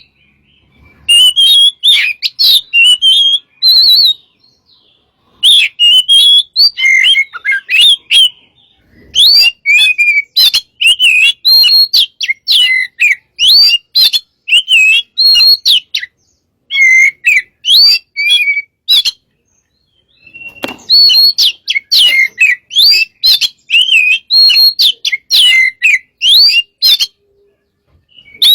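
Oriental magpie-robin (kacer) singing in full voice: fast runs of varied, sweet whistles and chirps, in phrases of a few seconds broken by short pauses.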